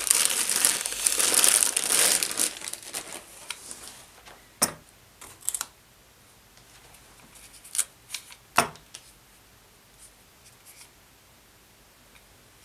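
Thin plastic bag crinkling and rustling as a cordless impact driver is unwrapped, for about the first three seconds. Then a few sharp clicks and knocks of the bare tool being handled, the loudest a little past the middle.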